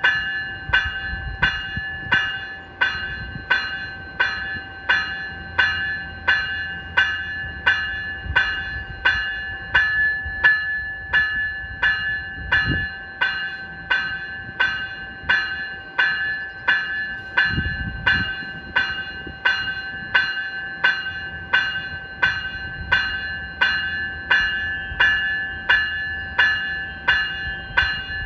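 Graham-White electronic bell on an NCTD Coaster cab car ringing steadily, a bright ding repeated about three times every two seconds.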